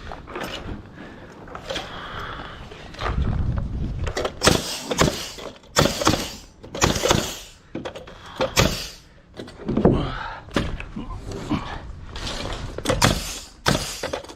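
Pneumatic nail gun firing nails into lumber: a series of sharp shots with short air hisses, irregularly spaced, mixed with knocks of wood being handled.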